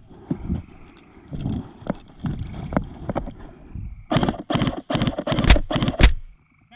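Footsteps with rustling gear, ending in about five heavy, loud footfalls roughly three a second.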